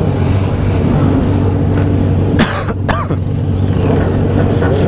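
Motorcycle engines idling in a stalled crowd of bikes, the nearest being a straight-piped Honda Hornet's inline-four running steadily. About two and a half seconds in, a short loud rasping burst cuts through twice in quick succession.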